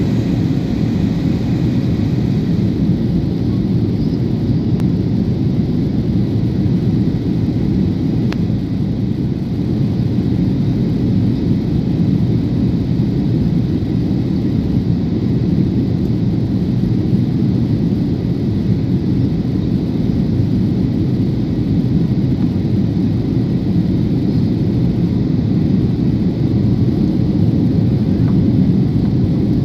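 Airliner cabin noise: the jet's engines and the airflow over the fuselage make a steady, deep rush, heard from inside the passenger cabin.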